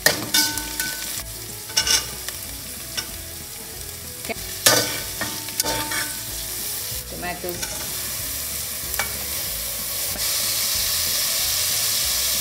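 Onions, curry leaves and carrots sizzling in hot oil in a pressure cooker, while a metal spatula stirs them and knocks against the pot's side several times. The sizzle grows louder about ten seconds in, as chopped tomatoes go into the oil.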